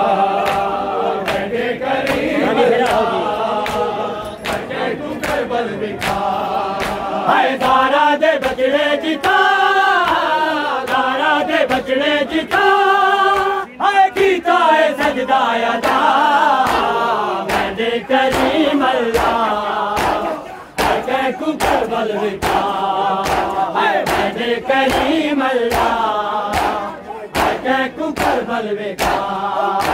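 Men's voices chanting a Punjabi noha in unison, a lead reciter with the group answering. Steady strokes of chest-beating matam keep time under the chant.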